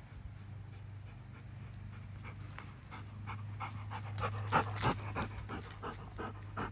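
Golden retriever puppy panting quickly, about three breaths a second, growing louder from about two seconds in, over a steady low hum.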